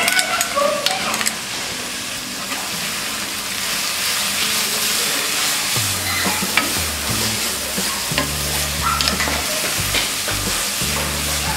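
Chopped and grated vegetables (potato, carrot, capsicum, cabbage, tomato) sizzling steadily in hot oil in a pan, while a wooden spatula stirs and tosses them, with scattered light scrapes and clicks against the pan.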